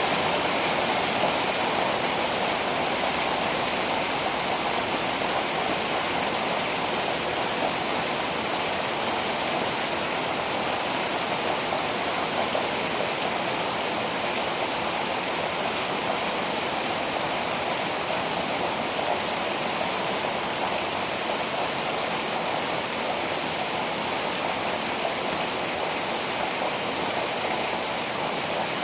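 Rain falling steadily, an even hiss with no thunder heard.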